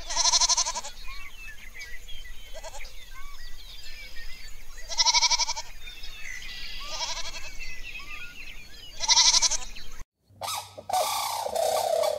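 Goats bleating: four loud bleats a few seconds apart, with fainter bleats and small chirps between them. About ten seconds in, the sound cuts to a different run of short animal calls.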